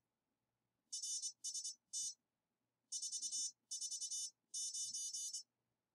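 Morse code (CW) sidetone from a Begali CW Machine keyer, a high buzzy tone keyed at 24 words per minute, spelling out 'RST 449': the sent signal report, which the logging software picks up from the code.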